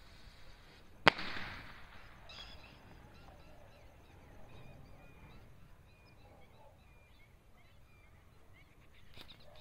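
A large skyrocket bursts high in the air with a single sharp bang about a second in, after the fading hiss of its climb, and the bang trails off in a short echo. Faint chirping calls follow.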